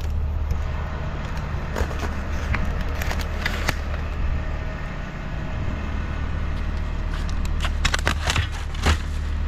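Street ambience with a steady low rumble of traffic, with short clicks and crackles scattered through it. Near the end the clicks come more thickly as a foam takeout box is handled.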